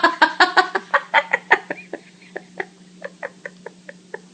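Quick run of short clucking calls, about six a second at first, then slowing, thinning out and growing fainter.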